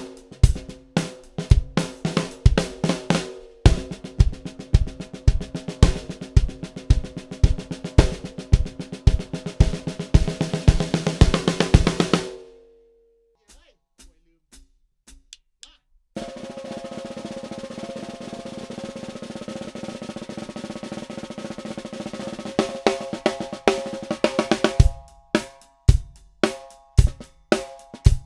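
Ludwig Supralite 14"x5.5" beaded steel-shell snare drum played in a kit groove with bass drum, the strokes packing into a fast fill before stopping abruptly. After a few seconds' pause comes a long, even snare roll, and then the groove starts again near the end.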